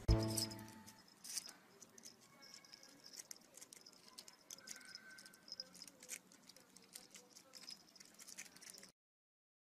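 A dull thump at the very start, then faint, irregular clicks and scratches of a cat's claws gripping and scrabbling on a brick wall.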